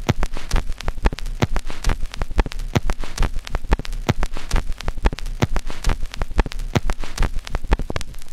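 Digital glitch sound effect: a dense, irregular stream of sharp electronic crackles and clicks, like static.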